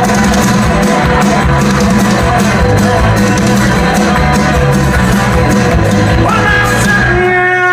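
Live band playing loudly: drums, electric guitar and bass in a dense, driving passage. Near the end the drum strokes drop out and held notes ring on, one of them bending upward in pitch.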